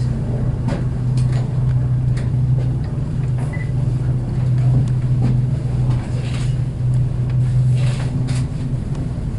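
Steady low hum of an aerial tram cabin riding up its ropes, heard inside the cabin, with a few faint clicks and knocks.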